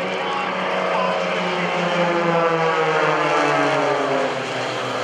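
Piston engines and propellers of two aerobatic planes, a CAP 580 and an Extra 300, flying past in close formation; the engine note drops steadily in pitch as they go by.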